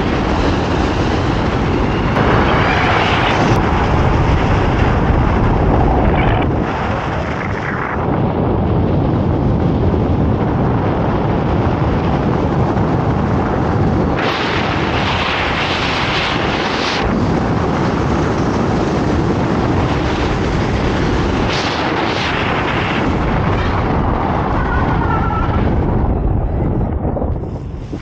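Loud wind rushing over the camera microphone from the airspeed of a fast speedflying descent, surging louder several times. It dies down near the end as the pilot lands.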